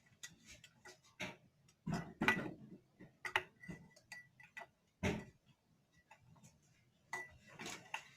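A spoon clicking and tapping against a small pot as a child stirs a slime mixture, in irregular knocks of uneven loudness with quiet gaps between.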